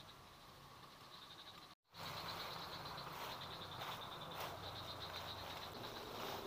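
A high-pitched chorus of calling insects, a steady, rapidly pulsing chirr. About two seconds in it cuts out briefly and comes back louder, with a few soft rustles of vegetation.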